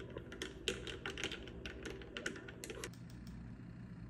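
Glass straw clinking against the inside of a glass cup as it is pushed down and stirred through a foam-topped iced drink: a quick, irregular run of light clicks for about three seconds, then they stop.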